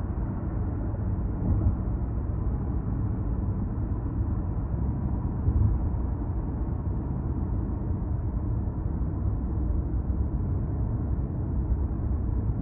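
Steady low rumble of road and tyre noise with engine drone, heard inside the cabin of a car cruising at expressway speed.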